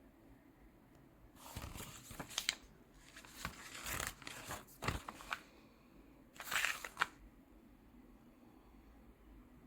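Irregular bursts of crinkling, rustling handling noise with a few sharp clicks, in two spells: a longer one from about a second and a half in, and a short one near the middle.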